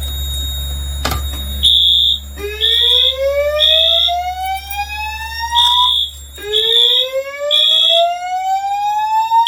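Fire alarm sounding: a slow-whoop tone that glides upward, twice, over short high-pitched beeps repeating about once a second. A steady low hum and a single click come before the alarm starts, about two seconds in.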